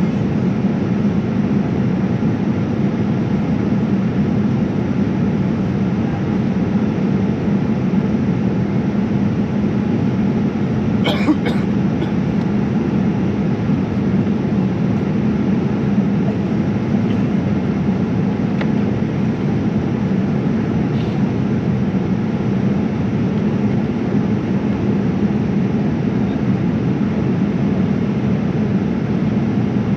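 Steady cabin noise inside a Boeing 787-9 airliner: a constant rush of engine and airflow noise over a low hum, with one brief click about eleven seconds in.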